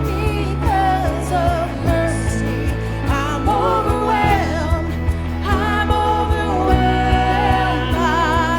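Live worship band playing a slow song with a singer, bass and a steady drum beat.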